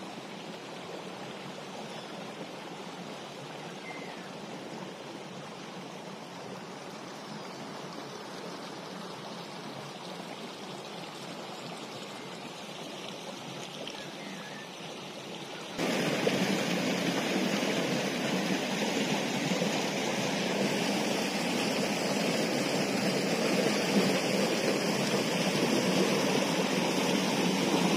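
Waterfall: a steady rush of falling water that suddenly becomes louder a little past halfway.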